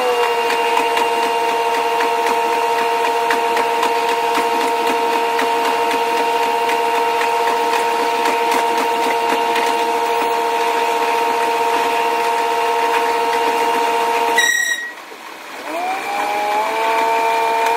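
KiHa 185 series diesel railcar running, its sound sped up six times into a steady high mechanical whine with several pitches. About 14.5 s in it breaks off with a click and drops away for a moment, then climbs in pitch in steps as the railcar powers up again.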